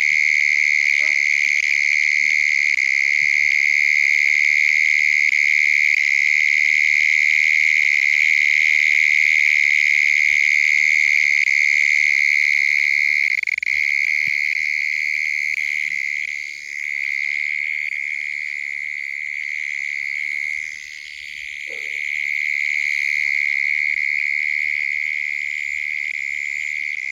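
Dense night chorus of calling animals: one loud, steady, shrill trill that drops away briefly twice, about two-thirds of the way through. Faint scattered calls sound underneath.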